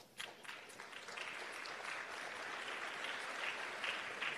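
Audience applauding: a few scattered claps that swell within about a second into steady applause.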